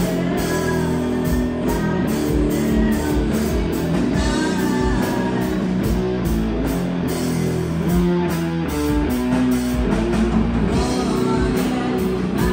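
Live rock band playing: electric guitars and drum kit, with a woman singing over them.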